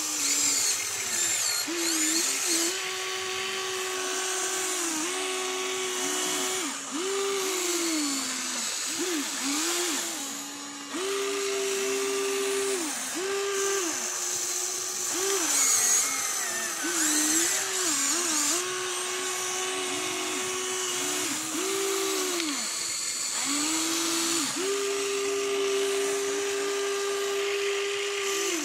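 Electric motors of a Huina RC excavator whining as the boom, arm and bucket are worked. The whine starts and stops every second or two, sliding up and down in pitch as each movement speeds up and slows.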